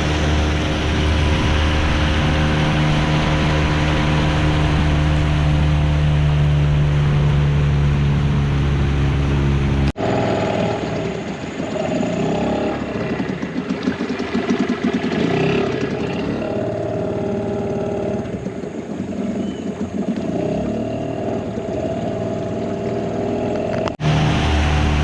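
Boat motor running steadily at an even pitch. About ten seconds in it cuts off abruptly to a different sound with wavering pitched tones, and the motor sound returns just as abruptly near the end.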